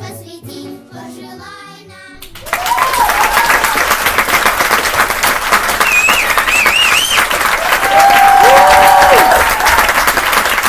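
A children's song plays for about two seconds, then cuts off and loud audience applause takes over, with a few shouts or whistles of cheering rising over it.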